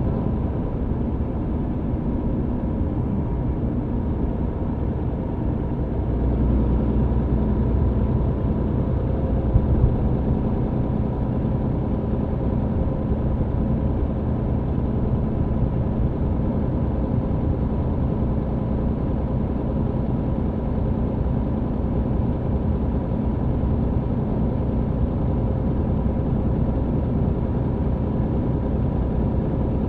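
MAN TGX truck's engine running under way with road noise, heard inside the cab as a steady low drone. The drone grows a little louder about six seconds in, and two brief knocks come near the ten-second mark.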